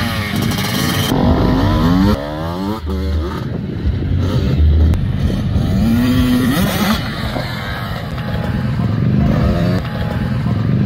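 Small motocross bike engine revving, its pitch climbing and falling again and again as the bike is ridden.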